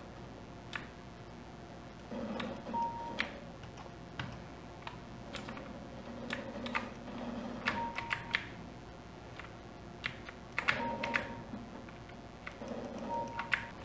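Scattered clicks of computer keyboard keys and Logitech M90 mouse buttons during play of a first-person shooter. Faint game sounds come and go in four short patches, each with a brief beep.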